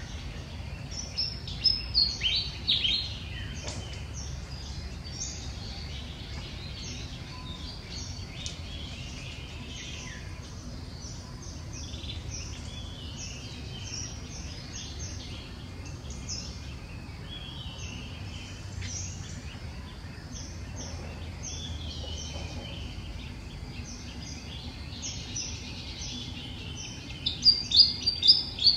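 Birds chirping and calling steadily in short high notes, with louder bursts of high, falling calls about two seconds in and again near the end.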